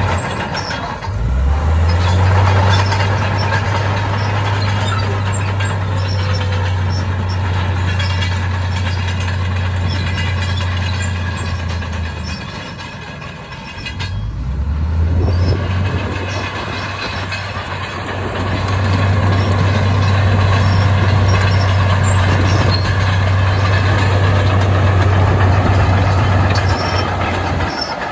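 Heavy diesel construction machinery running under load: a strong, steady low engine drone that eases off briefly about a second in and again for a couple of seconds midway, then comes back to full power.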